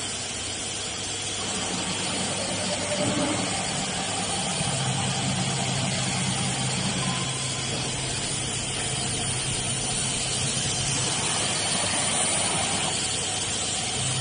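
Automatic tool-changer CNC router running through a tool change, with a steady machine hum and hiss as its axis drives move the spindle head along the tool rack. A low tone comes in about five seconds in, drops out around eleven seconds and returns near the end.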